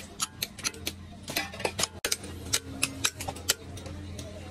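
Hand hammer striking a steel chisel driven into a scrap electric motor to cut out its copper windings: sharp metal-on-metal clanks, about three to four a second, over a steady low hum.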